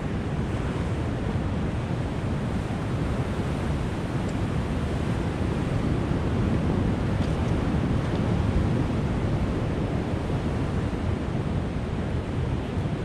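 Steady, deep rushing noise with no distinct events.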